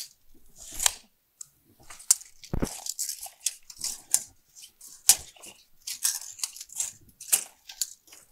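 Handling of a steel tape measure against the refrigerator between measurements: irregular clicks, scrapes and rattles, with one heavier knock about two and a half seconds in.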